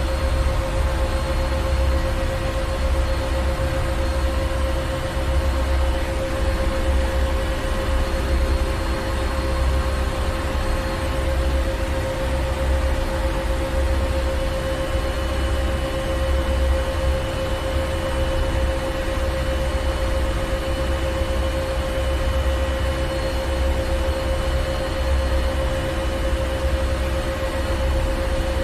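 Ship's engine room: heavy machinery running steadily, a deep rumble under a constant mechanical hum and hiss.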